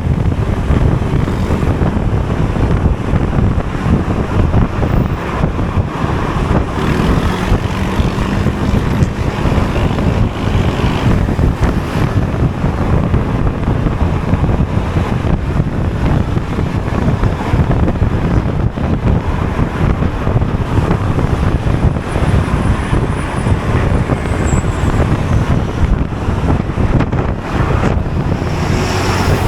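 Honda Forza 250 scooter being ridden at a steady pace, its engine and road noise under heavy wind rushing over the microphone.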